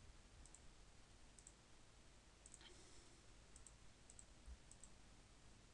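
Faint computer mouse clicks, several single clicks spread unevenly over near silence.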